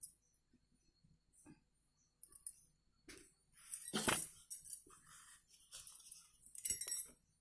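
Stainless-steel mixer-grinder jar being handled: scattered light clinks and knocks of metal, the loudest about four seconds in and again just before seven seconds, as the jar is moved and set down.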